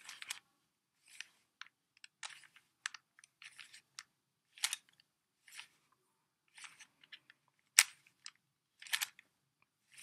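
Stickerless plastic 3x3 Rubik's cube having its layers turned by hand through a move sequence: a string of short clicking, scraping turns about every half second, with one sharp, loud click about three-quarters of the way through.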